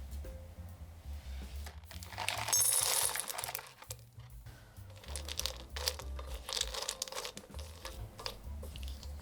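Crinkling and rustling, loudest for a second or two about two seconds in, followed by a run of light clicks and taps, over soft background music with a steady low beat.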